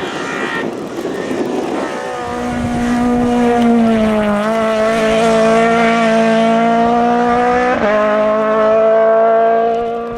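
Competition car's engine held at high revs as it climbs past at speed, with two quick gear changes, about four and eight seconds in; it grows louder as it nears and fades near the end.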